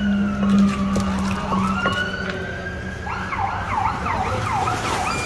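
Emergency-vehicle siren sounding, a slow falling-and-rising wail that switches about three seconds in to a fast yelp. A few short knocks of a wooden pestle in a clay mortar come in the first two seconds.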